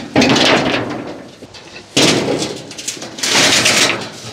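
Things being handled and set down: three sudden knocks, each trailing off in a scrape, about a second and a half apart.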